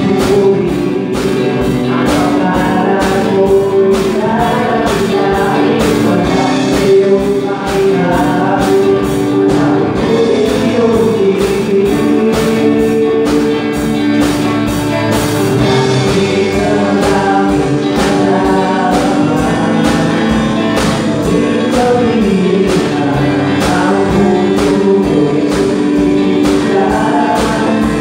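Live gospel-style worship song: a drum kit keeps a steady beat under singing voices.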